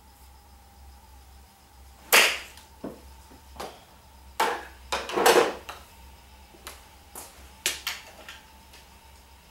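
Golf driver striking a ball off a hitting mat: one sharp crack about two seconds in, the loudest sound. It is followed by a scatter of smaller knocks and clicks from the ball and the practice net.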